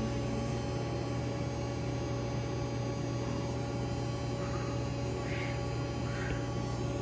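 Steady electrical hum made of several held tones over a low hiss, with a few faint, brief sounds in the background partway through.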